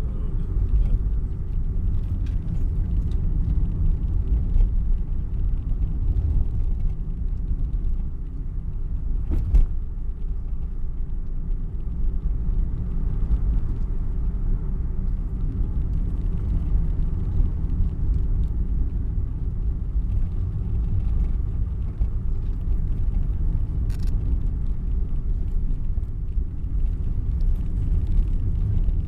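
Steady low rumble of a car's engine and tyres on the road, heard from inside the moving car's cabin. Two faint clicks come through, one about ten seconds in and one later on.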